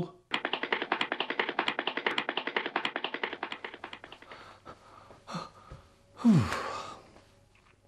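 A man's wordless vocal sounds. First a rapid run of short breathy pulses, about ten a second, fading away over some four seconds; then a brief gasp and a longer moan falling in pitch.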